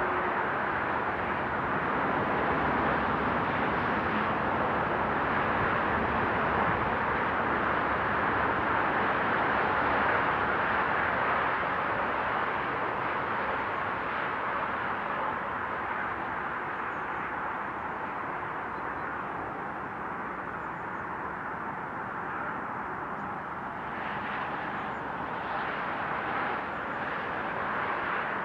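Steady rush of motorway traffic, tyre and engine noise from cars and trucks crossing a viaduct. It swells about ten seconds in, eases off, then rises again near the end as more vehicles pass.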